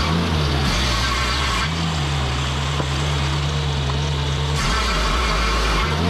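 Lucas Mill swing blade sawmill's engine running steadily at a constant pitch, with a hiss above it. The sound changes abruptly about two seconds in, again near five seconds, and just before the end, where the time-lapse is cut.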